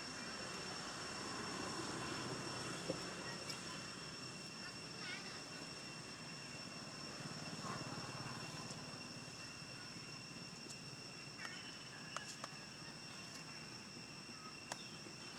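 Faint outdoor background: a steady high-pitched insect drone over a low hum of distant engine noise, with a few small clicks.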